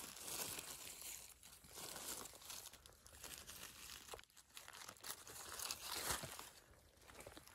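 Dry forest leaf litter and twigs rustling and crunching in irregular bursts as they are stepped through or handled, loudest about six seconds in and fading near the end.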